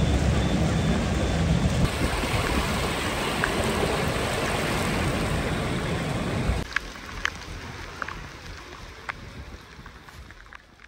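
Floodwater rushing over a street as a loud, dense hiss of flowing water. About six and a half seconds in it drops abruptly to a quieter flow with a few short ticks, then fades out.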